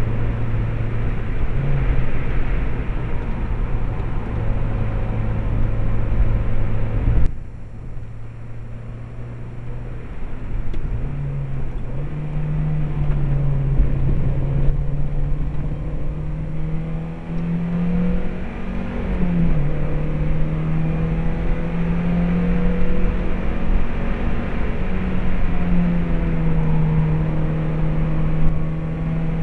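Stock Mazda MX-5's 1.8-litre four-cylinder engine running at speed, heard from inside the cabin over tyre and wind noise. About seven seconds in the engine note and road noise drop suddenly, then the revs climb again for several seconds, with a brief dip, and hold steady near the end.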